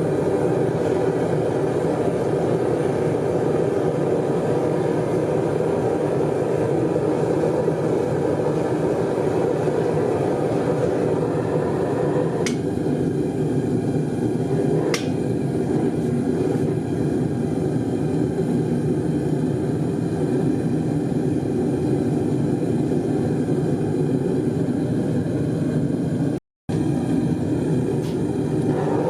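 Steady roar of a gas burner firing a metal-melting furnace, with a couple of faint clicks and a brief total cut-out near the end.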